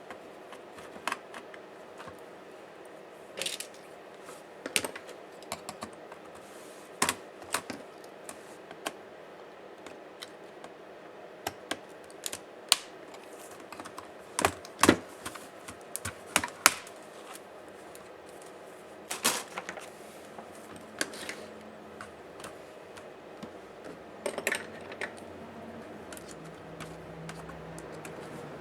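Irregular small clicks, taps and scrapes of a Dell Latitude 5480 laptop's plastic and metal parts being handled and worked apart with hand tools, a few sharper knocks among them. A faint low hum comes in near the end.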